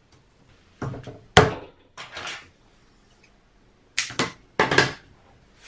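Handling noises of flexible magnet strip and the planar speaker's perforated steel plate: a string of sharp clicks and short scrapes. The sharpest click comes about a second and a half in, and a quick cluster of clicks follows around four to five seconds in.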